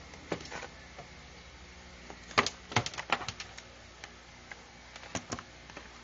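A plastic toy remote-control car and its cardboard box insert being handled as the car is unpacked: a scatter of sharp clicks and knocks. They are thickest from a little over two seconds to about three and a half seconds in, with another pair about five seconds in.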